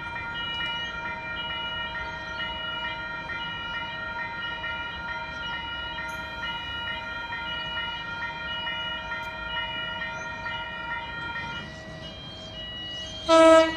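Railway level crossing warning bell ringing steadily with a regular pulse while the boom gates come down. It stops about twelve seconds in, and a short, loud horn-like tone sounds near the end.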